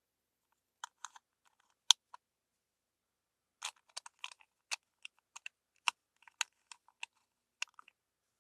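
Hard plastic toy parts clicking and snapping as they are handled and fitted together, an irregular run of sharp clicks with the loudest about two seconds in.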